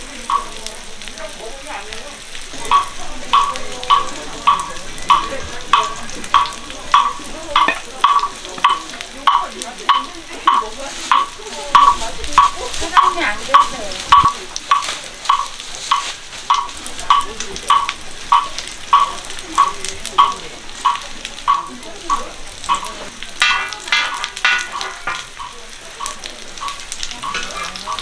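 Mung bean pancakes and egg-coated meat patties sizzling in oil on a flat griddle. Over the sizzle runs a steady series of short, high ticks, about two a second.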